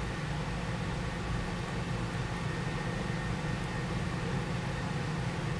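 Steady low hum with a faint hiss, unchanging throughout: the background noise of the room.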